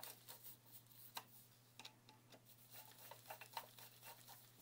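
Very faint, scattered small clicks of a screwdriver tightening the tiny breaker plate mounting screws in an Atomic 4 distributor; otherwise near silence.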